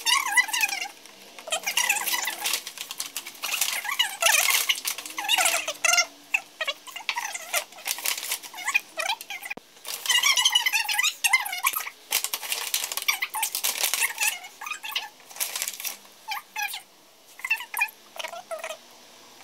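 Brown paper bag and plastic-wrapped items rustling and crinkling in irregular bursts as things are pulled out and handled.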